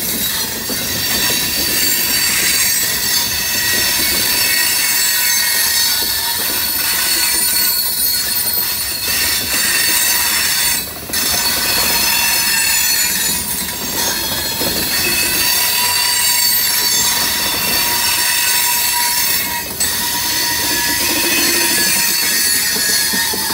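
Loaded open hopper cars of a freight train rolling past close by. The wheels squeal with several steady high-pitched tones over the rumble and clatter of steel wheels on the rails, dipping briefly twice.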